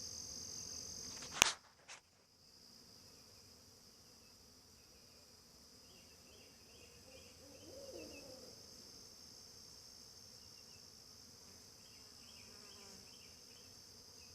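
A steady high-pitched insect trill, loud at first and then much fainter after a sharp click about a second and a half in. A few faint short chirps come and go over it.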